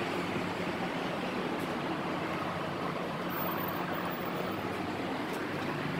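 Idling vehicle engines and traffic at a fuel station forecourt: a steady low engine hum under a constant rush of noise.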